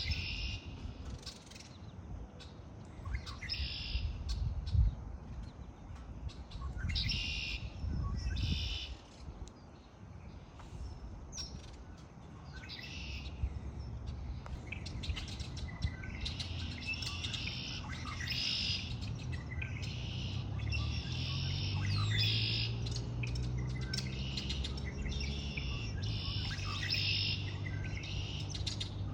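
Songbirds chirping and singing in short repeated phrases, over a low background rumble. In the second half a low droning hum that slowly bends in pitch joins in under the birds.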